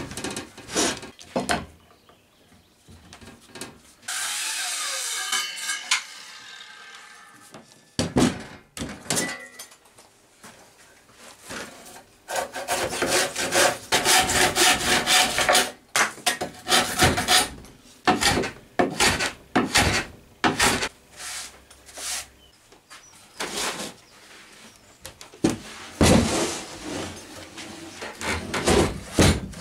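Handsaw cutting oak in a long run of repeated strokes through the middle, with knocks and scrapes of heavy oak timber being shifted and set down near the start and end.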